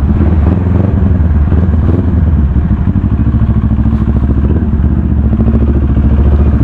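Motorcycle engine idling close by, a steady low pulsing beat with no change in speed.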